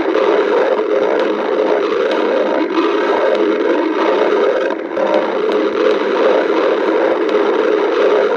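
A hungry stomach growling steadily, with a short lull about five seconds in.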